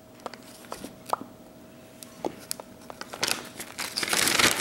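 Clear plastic vacuum-sealer bag being handled and opened: a few light crinkles and clicks, then a louder stretch of plastic rustling and crinkling starting about three seconds in.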